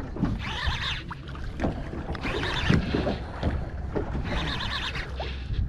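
Water slapping against the hull of a small boat in irregular surges, over the steady rumble of wind on the microphone.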